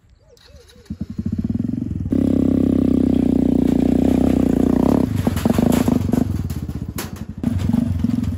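Small 110cc single-cylinder gasoline engine of a homemade tube-frame buggy running as the buggy drives over rough ground. It comes in about a second in and gets louder soon after, and from about halfway on there are many sharp rattles and knocks from the frame.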